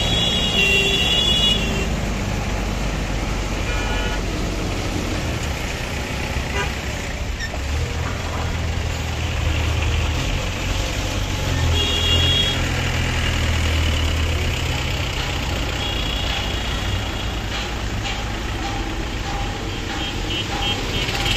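Road traffic: a heavy goods truck's engine running as it passes close, over a steady rumble of traffic. Vehicle horns toot briefly several times, near the start, about halfway and again a few seconds later.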